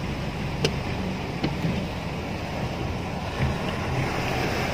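A car driving slowly through floodwater, heard from inside the cabin: a steady rush of water swirling around the car over the low hum of the engine, with a few light knocks.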